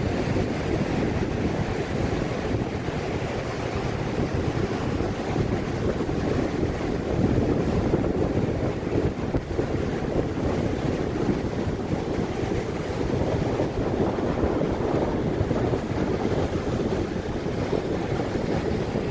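Strong wind of 40-50 mph buffeting the microphone with a low, steady rumble, over the rush of heavy Lake Michigan surf breaking on the shore.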